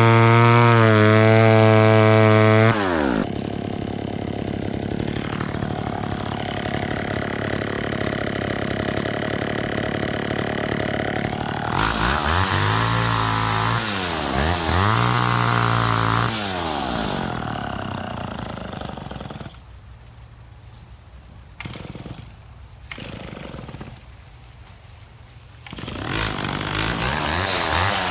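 Two-stroke chainsaw running at full throttle, then dropping off sharply a few seconds in. It is revved up and down several times in the middle, goes quieter for several seconds, and revs up again near the end.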